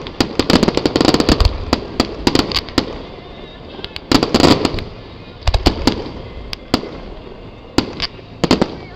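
Fireworks display: shells bursting with many sharp bangs and crackles. They come thick and fast for the first three seconds, in clusters about four and five and a half seconds in, and as scattered single reports after that.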